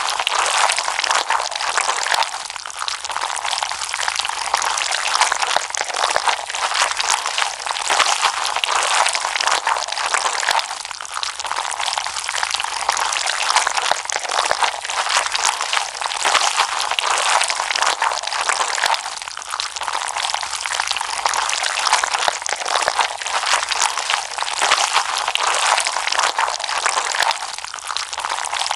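Slime being squished and kneaded by hand: a dense, steady crackle of many tiny wet pops and clicks.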